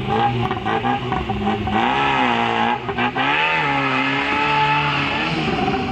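Tofaş car engine revved up and down repeatedly through a loud aftermarket exhaust, the pitch rising and falling several times.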